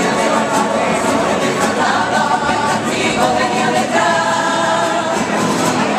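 Several voices singing together in chorus: a Cádiz carnival song sung by a street group.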